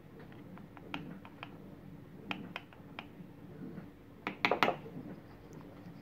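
Light clicks and taps of a plastic coffee scoop against a stainless-steel espresso portafilter as ground coffee is spooned into the basket, with a quick run of louder clacks about four and a half seconds in.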